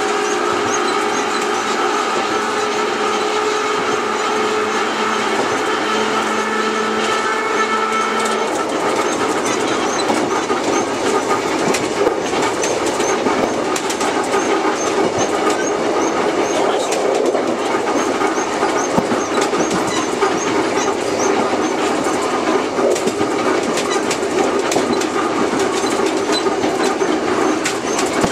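Takamatsu-Kotohira Electric Railroad's vintage 5000-series car No. 500 running along the track, heard from its cab: a steady electric-motor whine that stops about eight seconds in, with the wheels clicking over rail joints throughout.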